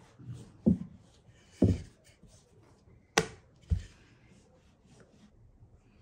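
Wooden rolling pin working dough on a wooden board: four dull knocks of wood on wood, the third very short and sharp, between softer scraping of the rolling.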